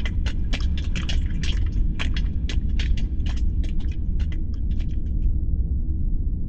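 Science-fiction space-station ambience: a steady deep rumbling hum, with a rapid, irregular run of short clicks over it that thins out and stops about five seconds in.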